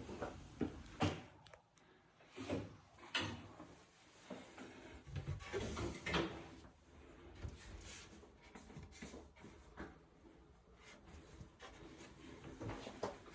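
Irregular wooden knocks, clunks and short scrapes of cabinet parts being handled, with a few louder clunks about a second in, around three seconds in and around six seconds in.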